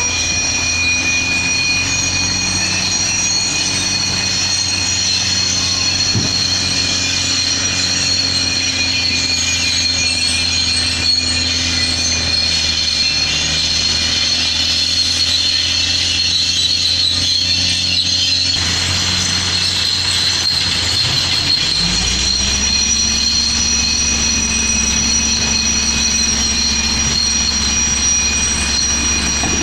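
Diesel dump truck engines running, with steady high-pitched whistling tones over them. About 22 seconds in, an engine note rises and then holds at a higher pitch.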